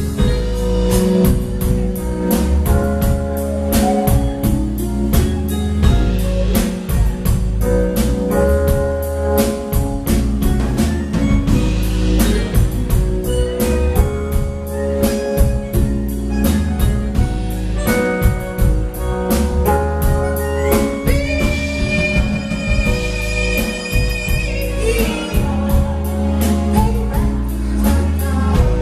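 Live band playing an instrumental blues groove: a drum kit keeps a steady beat under bass guitar and keyboard chords, with a long held higher note a little over two-thirds of the way in.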